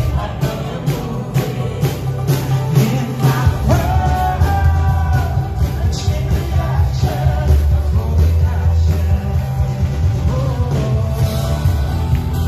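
Live worship band playing a rock song: sung vocals over electric guitar, bass guitar, acoustic guitar, keyboard and a steady drum beat.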